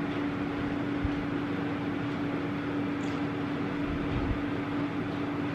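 Steady mechanical hum with one fixed low tone over a hiss, in the room's background, with a few soft low knocks.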